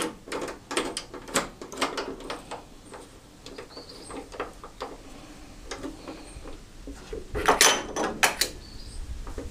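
Irregular metallic clicks and clanks of hand tools working on bolts: a quick run of knocks at the start, a few scattered ones, then a louder cluster of clanks near the end.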